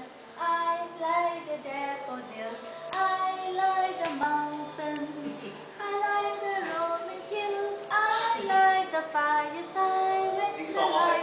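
A song sung by a child's voice together with a woman's voice, in a melody of held notes.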